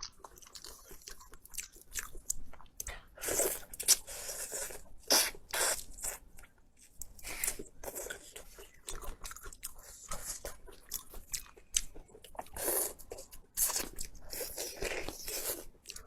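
Close-miked eating: a person biting and chewing crunchy food, with irregular crisp crunches and mouth sounds, the loudest bites about 4 and 13 seconds in.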